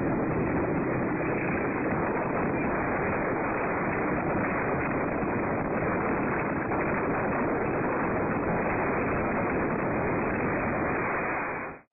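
Steady rushing wind and road noise from riding along at speed beside a motor scooter, with no distinct engine note; it cuts off abruptly at the end.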